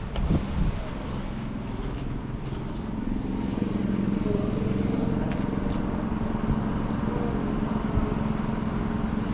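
A motor vehicle's engine running steadily at idle, getting louder about three seconds in, with a few knocks just at the start.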